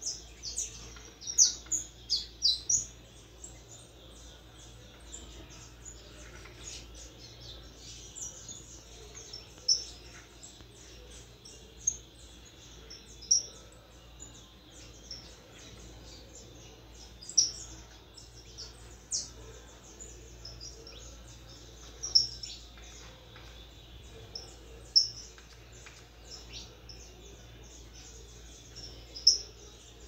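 Young saffron finch (canário-da-terra) practising its first song: a loose run of soft, high chirps and twitters, with a louder sharp note every few seconds and a busier cluster in the first three seconds.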